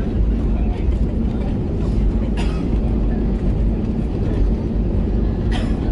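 Cabin rumble of an Airbus A320neo rolling on the ground just after landing: a loud, steady low roar with a faint hum, broken by a couple of sharp clicks or rattles.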